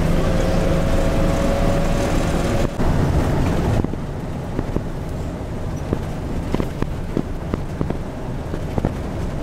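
Bus engine running under way, heard from inside the cabin, with a whine that rises slightly in pitch over the first few seconds. About four seconds in the sound drops a little, and frequent short rattles and knocks from the cabin follow.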